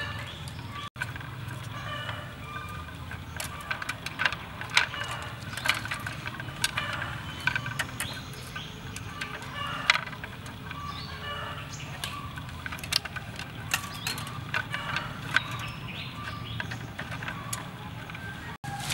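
Light clicks and taps of thin split-bamboo strips being handled and bound together by hand, with chickens clucking in the background over a steady low hum.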